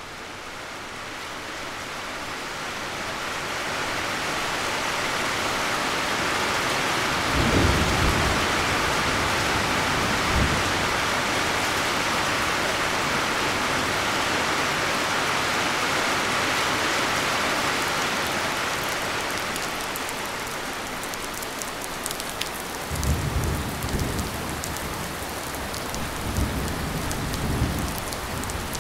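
Thunderstorm with heavy rain: a steady downpour that swells over the first few seconds, with short claps of thunder about seven and ten seconds in and longer low rolls of thunder near the end. In the last few seconds, single drops can be heard patter over the hiss.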